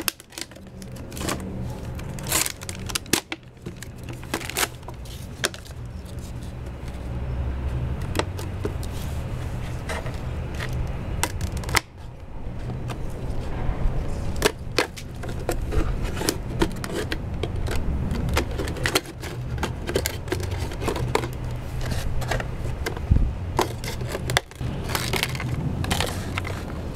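Scissors cutting through a thin clear PET plastic water jug: irregular sharp snips and crackling of the plastic as it is cut and handled, over a steady low rumble.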